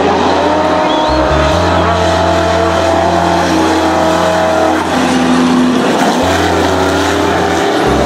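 Off-road race truck engines running hard on a dirt track, their pitch holding high and then dropping and changing about five seconds in as a truck lifts off and gets back on the throttle.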